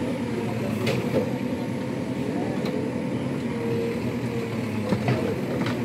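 Excavator engine running steadily as its bucket digs into the earth bank, with a few short knocks about a second in and twice near the end.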